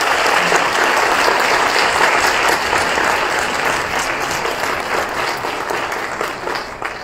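Audience applauding, many hands clapping together; the applause slowly dies down near the end.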